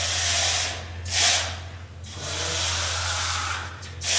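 Wide trowel drawn across wet, runny concrete screed in a series of smoothing strokes, each a rasping hiss: a short sharp one about a second in and a long one through the middle. The strokes level the fresh first layer and work trapped air out of it. A steady low hum runs underneath.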